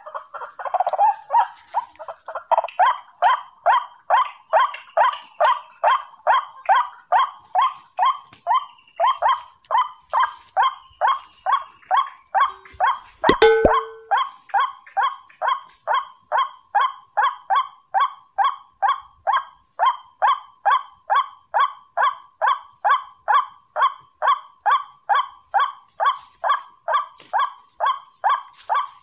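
White-breasted waterhen (ruak-ruak) calls played from a small loudspeaker lure, a short pitched note repeated evenly about three times a second without a break, over a steady high-pitched insect hiss. A single brief knock sounds about halfway through.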